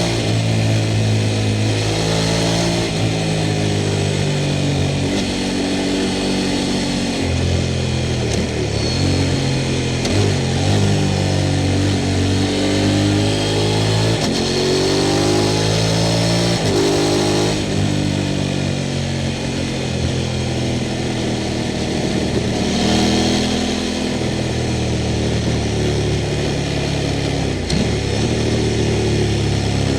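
Sport motorcycle engine under way, its pitch rising and falling repeatedly as it accelerates, shifts and backs off.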